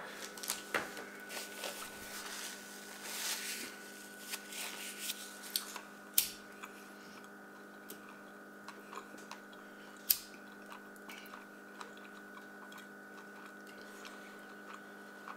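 A lighter clicked twice, about four seconds apart, while a blunt is lit, with soft handling and rustling noise in the first half, over a steady electrical hum.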